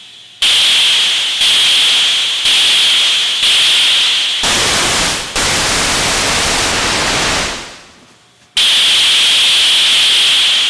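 ARP 2600-type synthesizer noise generators played from the keyboard: each key press sets off a sharp-edged burst of bright hiss that fades, four about a second apart. Then a fuller, deeper noise from the other instrument is held for about three seconds and dies away, and the bright hiss burst returns near the end.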